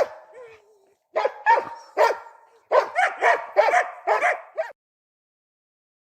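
Hunting laika barking in quick repeated barks, two to three a second in bursts, with a short whine after the first bark; the barking cuts off abruptly about three-quarters of the way through.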